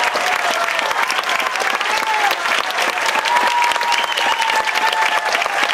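Audience applauding steadily, a dense patter of many hands clapping, with a few drawn-out voices calling out over it.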